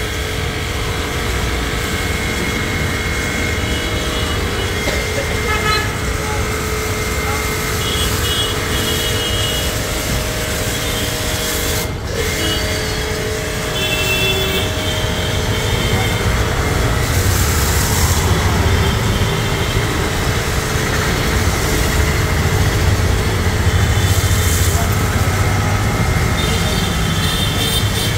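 Volts 3 HP, 160 bar electric high-pressure washer running steadily, its pump driving a jet of foam out of a foam cannon, with street traffic and occasional horn toots around it.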